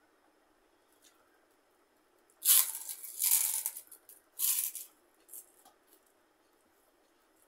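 Crisp fried tube papad (nol papad bhaja) crunching as it is bitten and chewed, in a few bursts between about two and a half and five seconds in, the first the loudest.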